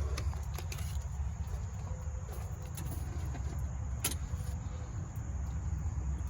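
Light metallic clinks and clicks of hand tools, such as a ratchet and sockets being handled, with one sharp click about four seconds in, over a steady low rumble.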